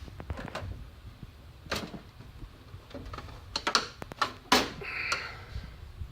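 Metal Snap-on tool box being handled: scattered clicks and knocks, with a short scraping slide a little past the middle, as a drawer is opened on its runners.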